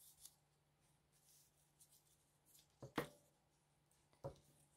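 Near silence with a faint low hum, broken by a soft double tap just before three seconds in and a single tap about four and a quarter seconds in: papers and craft pieces being handled on a work table.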